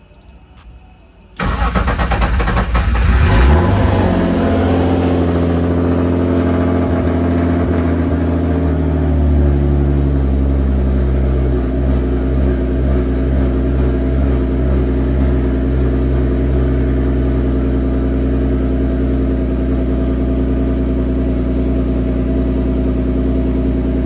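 Turbocharged BMW M50 straight-six cranked on the starter and catching about a second and a half in. The revs flare up, then it settles into a steady idle.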